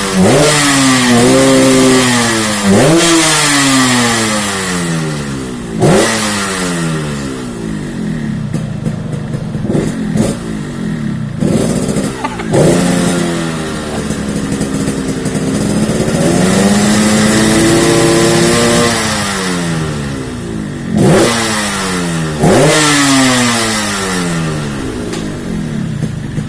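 Yamaha RX-King's single-cylinder two-stroke engine being revved in repeated throttle blips, each rising sharply and falling back, with one longer held rev about halfway through. The engine is set up for the deep 'ngorok' (snoring) exhaust note.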